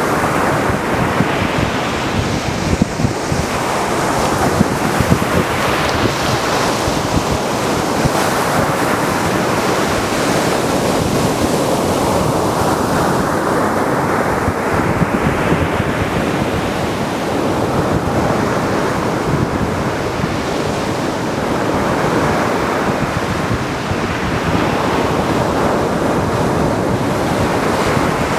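Mediterranean surf washing onto a beach: a continuous rush of waves that swells and falls back every several seconds.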